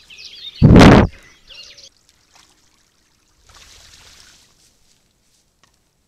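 A loud rushing blast on the camera trap's microphone about a second in, from an animal right at the lens, with birds singing faintly behind it.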